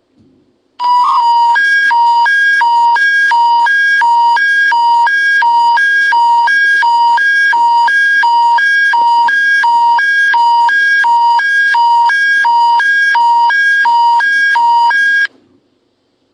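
Alberta Emergency Public Warning System alert tone: a loud electronic two-tone warble switching between a higher and a lower pitch about three times a second. It starts abruptly about a second in, runs for about fourteen seconds and cuts off suddenly, signalling that an emergency bulletin follows.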